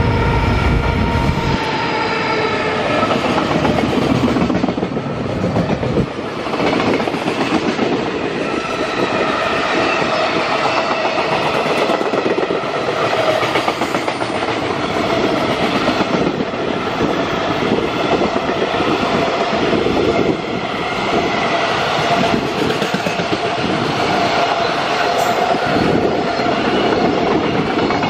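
EF510 electric locomotive hauling a long container freight train past at close range. A falling whine near the start as the locomotive goes by, then a long steady run of container wagons rolling past with wheel clatter on the rails.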